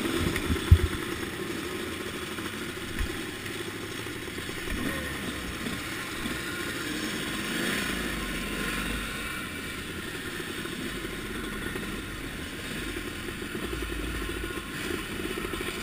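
A 1989 Suzuki RM250's two-stroke single-cylinder engine running at low speed as the bike rolls along, with other motocross bikes running around it. A sharp knock comes just after the start.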